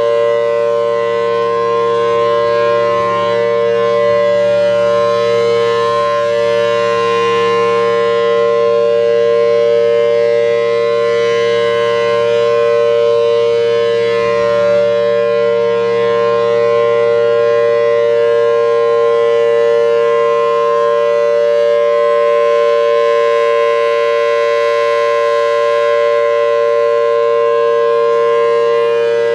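Federal Signal Thunderbolt 1000T civil defense siren with a 4/5-port chopper and C-series blower, sounding a steady full-alert signal: two pitches a major third apart, held together without rising or falling.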